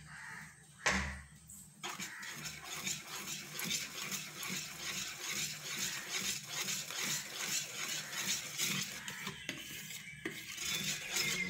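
Metal balloon whisk beating flour into egg batter in a plastic bowl: a quick, even run of scraping, clicking strokes against the bowl. A short knock comes about a second in.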